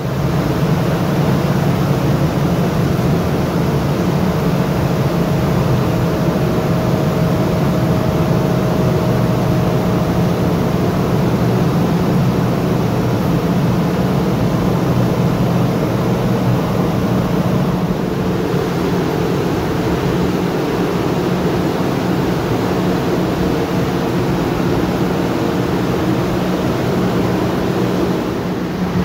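Spiral freezer's evaporator fans running: a steady drone of moving air with a low hum, and a faint higher tone that stops a little past halfway.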